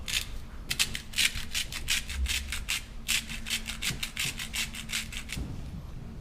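Hand-held spice grinder being twisted to season a vinaigrette: quick rasping strokes, about four or five a second, in two runs with a short pause a little before the middle.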